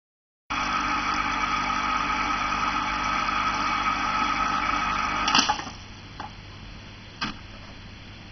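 A small motor humming steadily with hiss; about five seconds in a click comes and the hum drops away to a faint hiss, followed by two short knocks.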